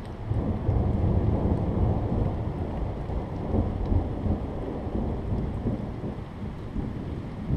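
Rolling thunder: a low rumble that swells suddenly about a third of a second in, then slowly dies away, over the steady hiss of rain.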